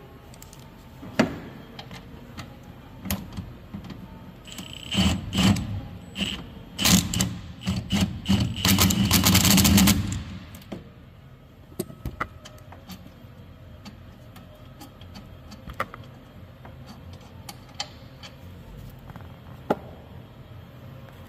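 Cordless power tool with a socket on an extension working a bolt on a Thermo King condenser fan motor: a few short bursts, then one longer run of about a second and a half, among metallic clicks and clanks of the socket and tool on the housing.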